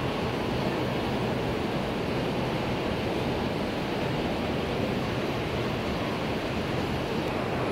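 Steady, even rushing noise of model trains running on a layout, the rolling of their wheels blended with the hum of the exhibit hall, with no distinct clicks or horn.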